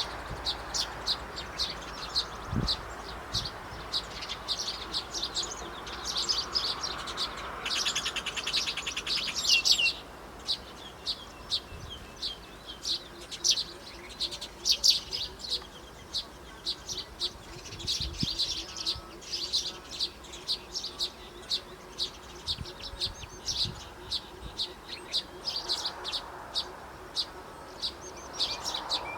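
Small birds chirping, a steady stream of short high chirps, with a dense buzzy trill about eight seconds in that runs for roughly two seconds.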